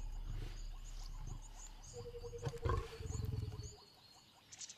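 Male lion growling low over its kill, a deep pulsing rumble that swells about two to three and a half seconds in, with small birds chirping faintly.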